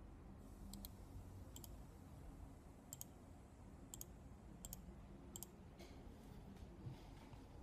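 Computer mouse clicking about six times, spaced out, each click a quick double tick of press and release, over a faint low room hum.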